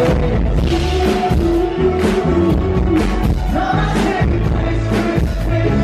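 Live band playing a song: a lead singer sings into a microphone over drums and bass, with a steady beat.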